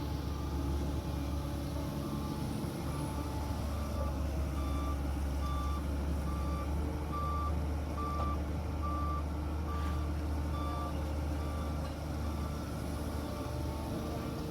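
Reversing alarm on heavy earthmoving equipment, beeping at one pitch about once a second. It starts about three seconds in and stops a few seconds before the end. Underneath, a diesel engine runs steadily.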